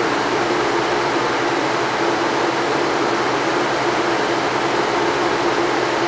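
Haier ESAQ406T 6,200 BTU window air conditioner's blower fan running steadily with the compressor off: an even rush of air with a steady hum under it. The fan is blowing over the evaporator coil to clear frost that built up from too little airflow on low speed.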